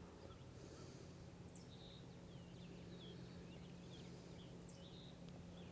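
Faint birdsong: many short chirps and quick rising and falling whistles, over a faint steady low hum.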